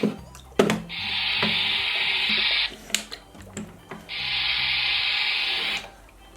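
Battery-powered toy steam iron spraying in two hissing bursts of a little under two seconds each, with clicks between them as its spray button is pressed.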